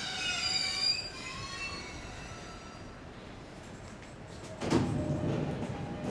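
JR East E231-series commuter train at the platform: several high, slightly wavering squealing tones fade away over the first two seconds. A sudden, louder rush of train noise follows about four and a half seconds in.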